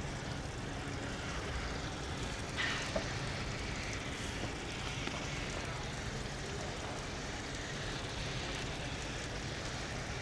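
Small industrial steam locomotive approaching at a distance, with a steady low rumble and hiss of steam and no distinct exhaust beats.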